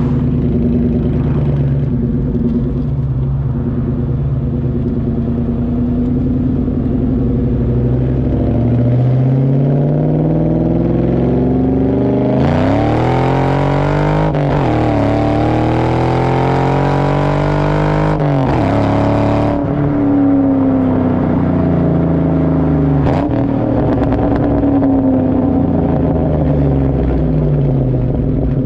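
A 99-04 Mustang GT's 4.6 L V8 through a DNA Motoring cat-back with a JBA off-road H-pipe, heard right at the tailpipe during a wide-open-throttle pull. The exhaust note climbs, turns much louder and fuller at full throttle, dips at a gear change and climbs again, then falls away as the throttle is lifted.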